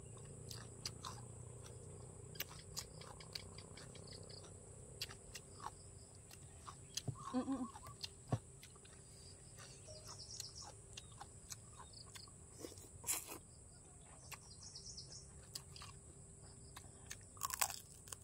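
Quiet eating sounds: chewing with soft mouth clicks and scattered crunches, ending in louder crunchy bites of crispy pork belly near the end. Faint bird chirps are heard behind.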